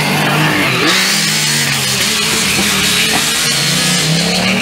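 Formula SAE race car engine running at speed as the car passes close by, a steady engine note with some tyre and wind noise.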